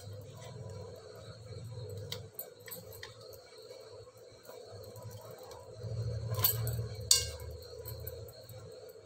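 Hands handling eggplants on a steel plate while pressing garlic cloves into them, with light clinks from the bangles on the wrist and a low rubbing rumble; two sharper clinks about six and seven seconds in are the loudest.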